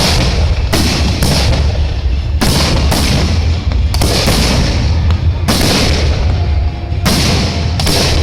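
Fireworks display: about eight loud shell bursts in quick succession, each a sharp bang with a crackling, fading tail, over a constant low rumble.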